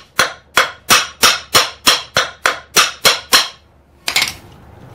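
Hammer blows on the hub of a donkey pump's metal wheel, driving it down onto its crank shaft: an even run of sharp strikes about three a second that stops a little past three seconds in, followed by a single knock near four seconds.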